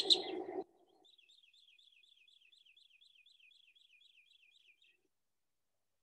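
A bird calling: a faint, fast series of short descending chirps, about four or five a second, that stops about five seconds in.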